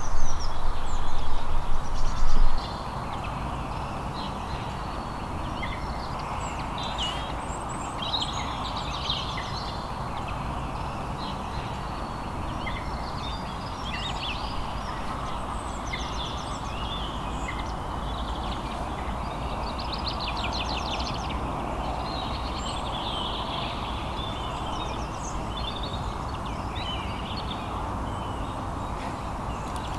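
Many small birds singing and chirping in short, varied trills over a steady outdoor background noise, with a louder stretch of noise in the first couple of seconds.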